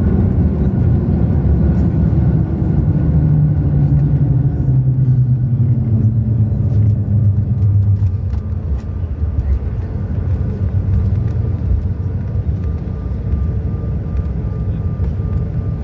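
Cabin noise of a CRJ-900 regional jet on the ground after landing: a loud low rumble from its rear-mounted turbofans and the rolling airframe, with engine tones falling in pitch midway, after which the noise eases.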